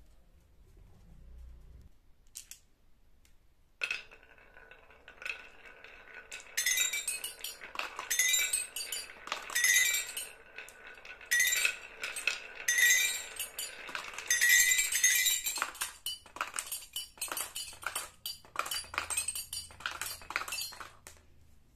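Glass marbles rolling down a wooden zigzag track and bouncing down the metal bars of a toy xylophone, striking short ringing notes and clinks in repeated bursts over a rolling rumble, starting about four seconds in. Near the end the notes give way to a quick run of sharp clicks and clacks as the marbles knock together at the bottom and are gathered by hand.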